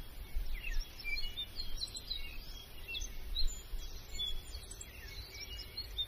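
Several small birds chirping and singing, with quick chirps and short whistled notes coming thick and fast, over an uneven low rumble.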